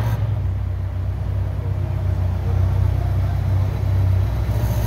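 Ferrari FF's V12 engine idling with a steady, deep, low-pitched hum.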